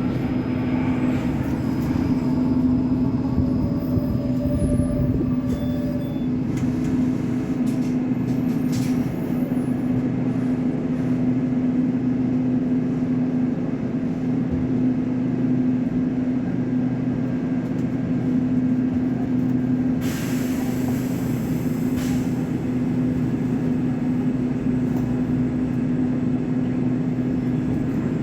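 Caio Millennium BRT trolleybus on a Scania K270UB chassis running stationary, a steady mechanical hum holding one pitch. About twenty seconds in comes a short hiss of air lasting about two seconds.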